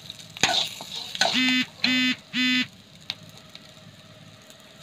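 An electronic beeper sounds three short beeps of the same pitch, about half a second apart, in the middle. Under them, a steel spatula clicks and scrapes through chicken pieces dry-frying in a pan, with a faint sizzle.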